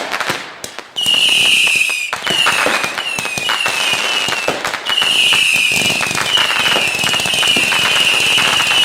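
Consumer fireworks going off in quick succession: a string of shrill whistles, each falling slightly in pitch, over dense crackling and popping. It starts loudly about a second in.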